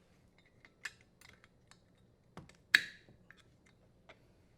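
Sparse small clicks and taps of a strain relief nut being threaded and tightened on a dishwasher's electrical terminal box, with one sharper click a little past halfway.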